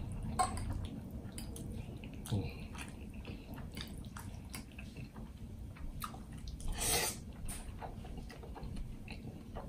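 Close-up wet chewing of creamy shrimp Alfredo pasta, with many small lip and mouth clicks. A short, louder slurp of noodles comes about seven seconds in.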